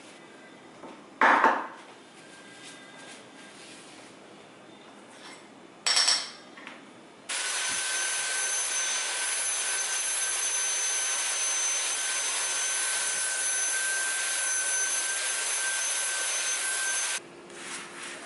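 Handheld vacuum cleaner switched on about seven seconds in, running steadily with a high whine for about ten seconds as its crevice nozzle sucks a powder spill off a countertop, then cut off. Two brief clunks come before it starts.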